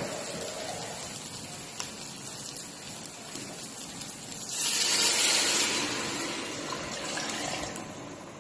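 Rice sizzling in a hot steel pot as it is stirred with a metal slotted spoon, then, a bit past halfway, water poured in from a pitcher gushing into the pot, the loudest part, easing off toward the end.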